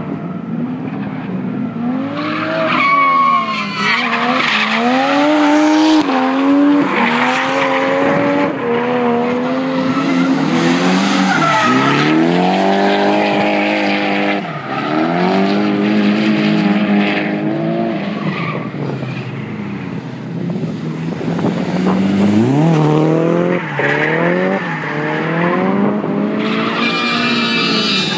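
Drift cars, among them a Nissan 180SX, a Toyota Verossa and a Toyota Chaser, sliding through corners: engines revving hard, rising and falling again and again, with tires squealing and skidding.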